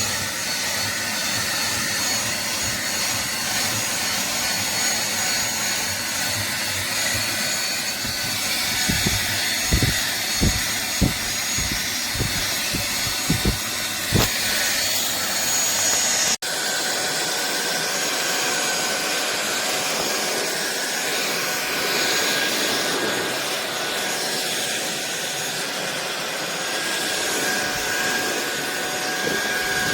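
SunSare cordless stick vacuum cleaner running with a steady whine over a rushing airflow. A handful of low knocks come around the middle, then a brief break, after which the motor runs on with a different whine.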